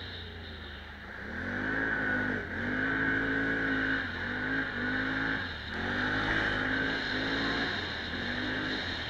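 Off-road vehicle's engine under throttle, the revs climbing and dropping several times with a deep dip about halfway through, over a steady rushing noise.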